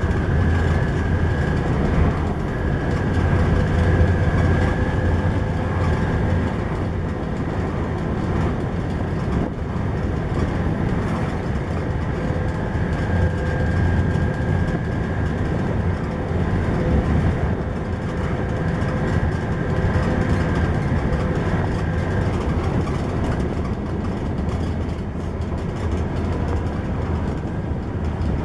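Volvo B7TL double-decker bus cruising at speed, heard from inside: the steady hum of its 7-litre six-cylinder engine and drivetrain under road and tyre noise, with a faint whine that comes and goes.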